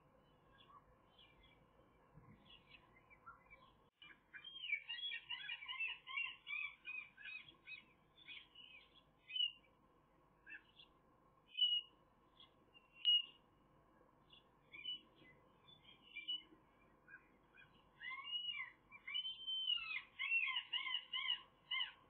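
Birds chirping. Quick runs of short, arching whistled notes come about four to eight seconds in and again near the end, with a few single sharp chirps in between, over a faint steady hum.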